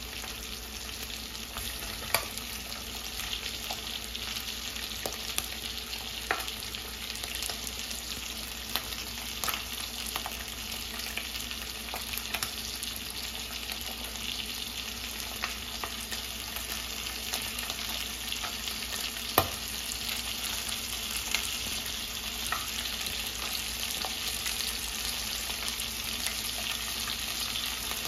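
Slices of pork loin frying in a pot, a steady sizzle with scattered sharp pops. One louder click comes about two-thirds of the way through.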